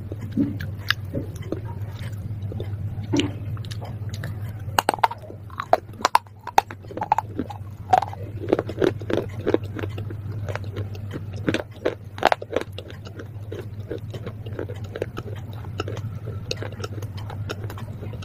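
Pieces of baked clay pot and slate pencil being bitten and chewed close to the microphone: a run of dry, crisp crunches, thickest from about five to thirteen seconds in, over a steady low hum.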